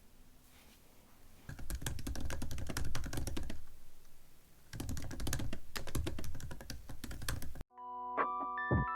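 Typing on a computer keyboard: two runs of rapid key clicks with a short pause between them. Near the end it cuts off suddenly and light mallet-instrument music begins.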